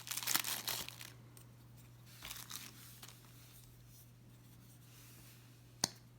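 Plastic packaging crinkling and rustling as a knife is unwrapped, loudest in the first second, with a fainter rustle a little past two seconds. A single sharp click comes near the end.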